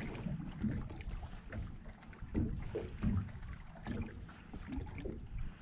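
Water lapping against the hull of a small fishing boat, with wind rumbling on the microphone and a few light knocks.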